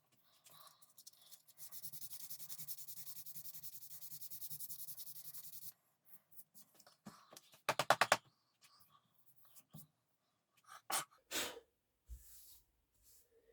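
Hand work on the gunstock: a fast, even scraping or rubbing that runs for about five seconds and stops abruptly. A short louder rasp about 8 seconds in is followed by a few light knocks of tools being handled.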